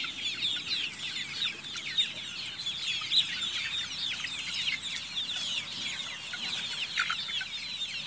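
A large flock of month-old native chickens peeping and cheeping together, a dense chorus of many short, high, falling chirps overlapping without a break.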